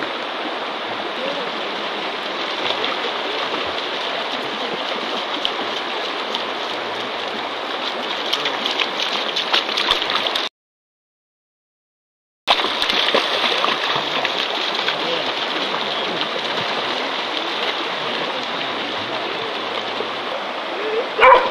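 Shallow river water rushing, a steady hiss, with splashing from dogs running and leaping through it about eight to ten seconds in. The sound cuts out completely for about two seconds in the middle, and a brief voice-like call comes near the end.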